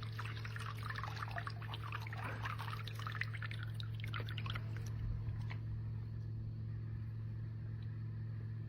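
Water pouring and splashing for about five seconds, then dying down, over a steady low hum.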